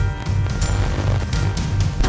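Electronic outro music with a heavy, pulsing bass and sharp percussive hits in a steady beat.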